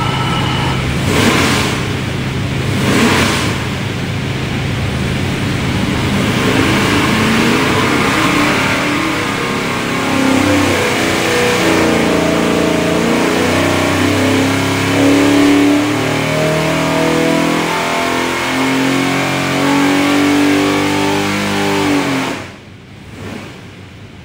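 Carbureted 582-cubic-inch big-block Chevy V8 airboat engine running loud on an engine dyno. It is blipped twice in the first few seconds, then held under load while its pitch climbs steadily through a full-throttle power pull. Near the end it drops back sharply as the throttle is closed.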